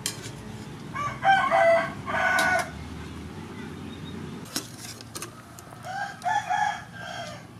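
A rooster crowing twice, about a second in and again near the end, with a pot boiling steadily underneath.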